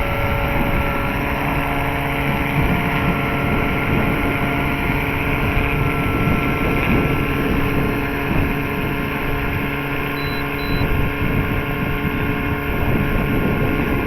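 Large scale electric RC helicopter in flight: a steady motor and rotor whine of several held tones, over a rush of rotor wash and wind buffeting the microphone.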